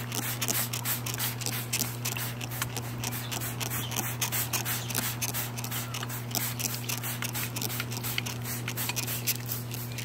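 Hand-held plastic spray bottle being pumped rapidly, its trigger clicking and nozzle hissing with several squirts a second as it mists water onto a blue-and-gold macaw's feathers.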